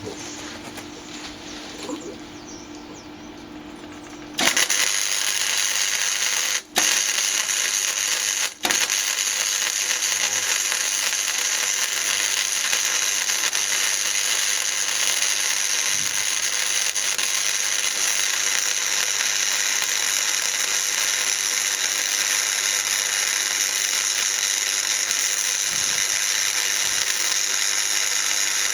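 Electric welding arc running on a high setting on thick steel: after a few quieter seconds it strikes suddenly as a loud, dense hiss, stops briefly twice in quick succession, then runs on steadily for about twenty seconds.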